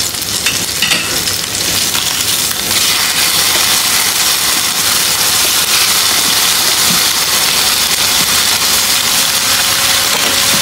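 Chicken breast pieces sizzling in hot oil in a frying pan, the sizzle growing louder a couple of seconds in. A few light clicks near the start come from the glass lid and metal tongs.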